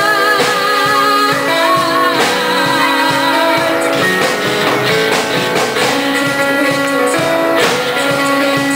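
Live rock band playing: a female lead singer holding notes with vibrato over electric guitars, keyboard and drums, heard through the sound system of a hall.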